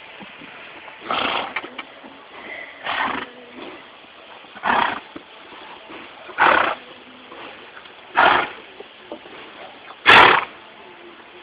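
A horse sneezing, six short forceful blasts at an even pace of about one every two seconds.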